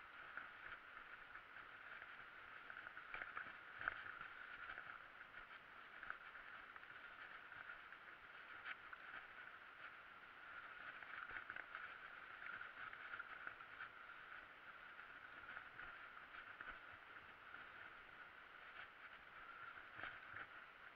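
Faint, muffled rattling and ticking of a mountain bike rolling over a bumpy dirt singletrack, heard through a camera case, with a sharper knock about four seconds in.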